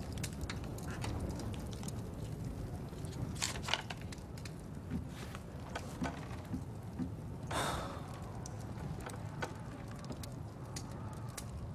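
Quiet room ambience: a low steady rumble with scattered faint clicks and crackles, and two short soft rustles, about a third of the way in and about two-thirds through, the second the loudest.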